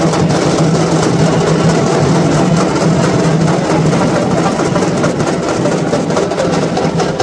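Loud, steady din of a packed crowd, with music and voices mixed in.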